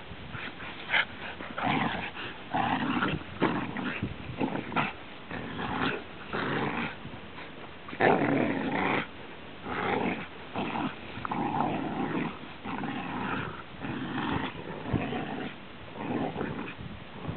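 Dogs growling in rough play, in repeated short bouts, the loudest about eight seconds in.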